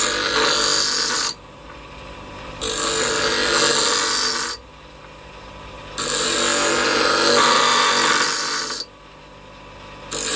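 Twice as Sharp motorized scissor sharpener grinding the edge of a kitchen-scissor blade. There are four grinding passes of about two to three seconds each, with the motor running more quietly between them: the usual four passes that sharpen the blade.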